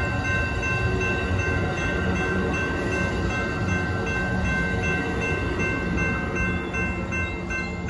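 Amtrak bilevel Superliner passenger cars rolling past with a steady rumble of wheels on rail, while the crossing's General Signals electronic bells ring continuously. The last car passes about six seconds in, and the rumble eases near the end.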